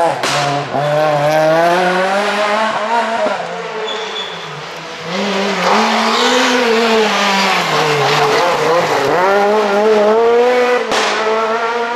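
Renault Clio rally cars passing at stage pace, engines revving hard, the pitch climbing and dropping again and again with gear changes and lifts for the corner. The sound eases about four seconds in, then a louder pass comes through, and it switches abruptly to another pass near the end.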